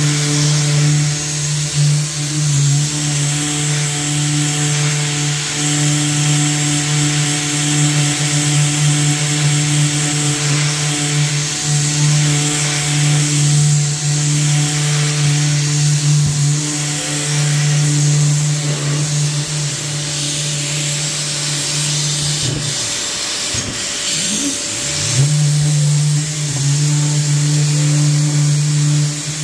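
SurfPrep rectangular random-orbital sander running on a primed cabinet door: a steady motor hum with a high sanding hiss. A little over twenty seconds in, the hum winds down and comes back up to speed within about three seconds.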